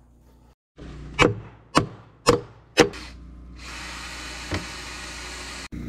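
Four sharp hammer blows on a wooden coop frame, about two a second, followed by a steady hiss with one faint knock.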